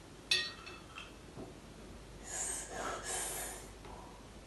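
A single sharp clink of china, then two long breathy sipping sounds close together, from a child drinking noisily from a teacup.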